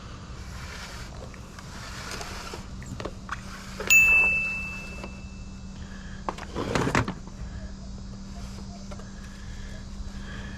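A sharp metallic clang about four seconds in, ringing on as one clear high tone for about two seconds. A couple of seconds later there is a short rushing burst, over a steady low hum.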